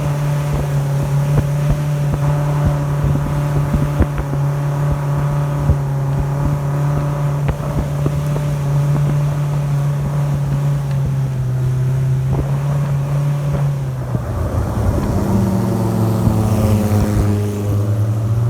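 Speedboat engine running steadily at speed, with short knocks scattered through. About fourteen seconds in, the engine note shifts lower and a second, higher engine note joins it.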